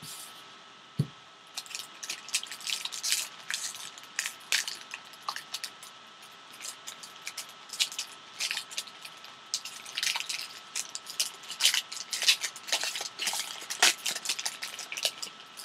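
Foil trading-card pack wrapper being torn open and crinkled by hand: a dense, irregular run of crackles, after a single knock about a second in. A faint steady high tone runs underneath.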